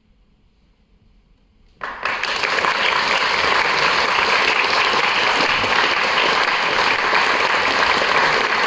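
A moment of near silence, then audience applause starts suddenly about two seconds in and carries on steadily.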